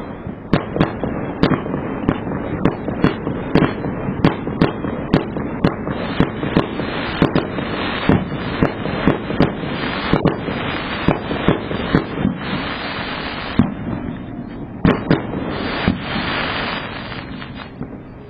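A fireworks barrage: a fast run of sharp bangs, about two a second, over continuous crackling, with stretches of hissing near the end.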